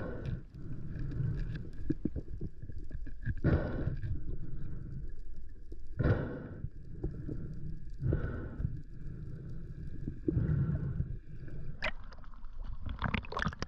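Water sloshing and gurgling around a camera held just under the sea surface, in surges every two to three seconds, over a steady boat motor hum; near the end it breaks into splashing as the camera comes up through the surface.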